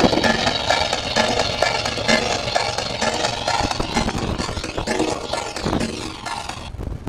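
A boat's engine running steadily, heard from on deck, dropping away near the end.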